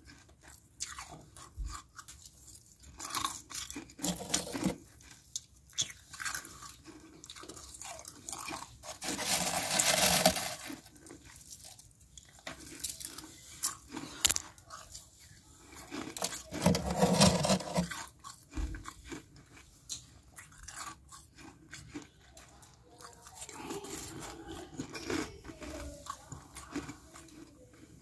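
Close-up crunching and chewing of thin, flaky freezer frost, in irregular bursts, the loudest about ten and seventeen seconds in.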